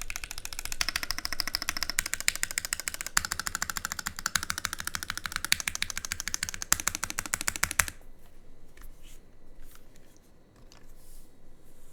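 Fast, continuous typing on an SM x TGR LIN aluminium custom mechanical keyboard with lubed Gateron X switches and GMK Dolch keycaps: a dense stream of key clacks. The typing stops about eight seconds in, leaving a few faint, scattered clicks.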